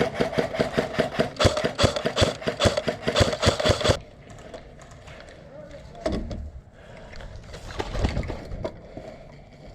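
Airsoft electric gun (AEG) firing a full-auto burst of about four seconds, roughly eight to ten shots a second over a steady motor whine, cutting off abruptly.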